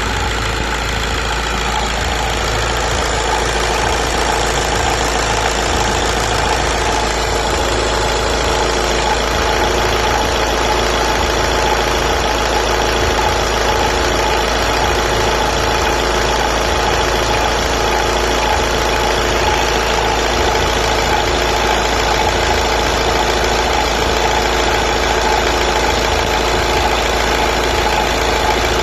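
Škoda Rapid Spaceback engine running steadily, making the strange sound its owner is recording, with a steady tone standing out above the engine noise.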